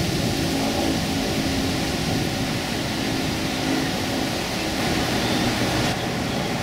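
Steady street traffic noise with a low engine drone.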